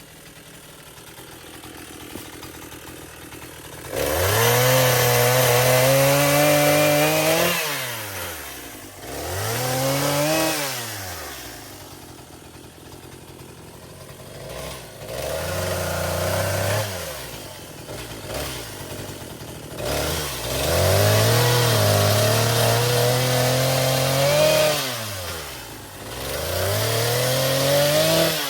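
Echo CS-490 two-stroke chainsaw idling, then opened up to full throttle again and again. It holds high revs for a few seconds at a time while cutting limbs, then falls back to idle.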